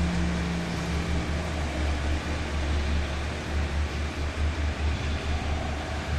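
Low, uneven rumble of wind buffeting the microphone, over a train running on the line.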